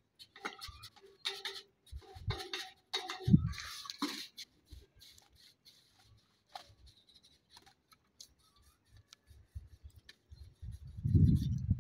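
Paintbrush strokes on a metal window grille: short, irregular scraping and rubbing, busiest in the first four seconds, then sparse faint ticks, with a few low thumps near the end.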